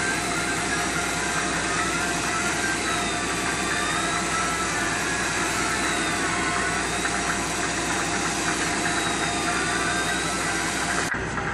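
Fishing boat's engine running steadily, with a faint high tone wavering up and down over it; the sound changes abruptly just before the end.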